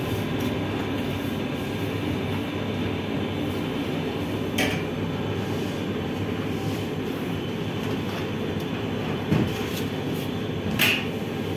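Steady rumbling noise of bakery machinery running. Two short sharp clicks cut through it, about five seconds in and again near the end, with a dull knock just before the second.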